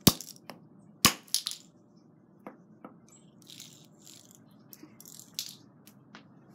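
A hammer striking earbuds on concrete twice, about a second apart, the second blow followed by a quick rattle of smaller clicks. After that come a few light ticks and brief scuffs.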